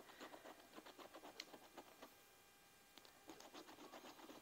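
Faint, quick scraping strokes of a lottery scratch ticket's coating being scratched off, in two runs with a pause of about a second just after the two-second mark.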